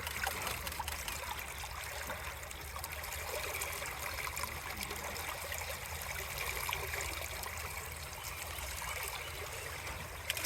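River water running and trickling steadily.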